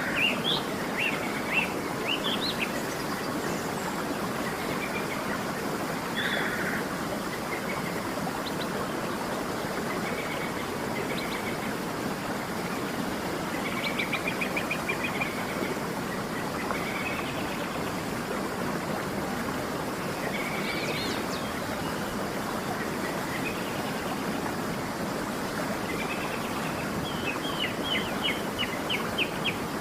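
A waterfall rushing steadily, with birds chirping over it at intervals, including a quick run of chirps near the end.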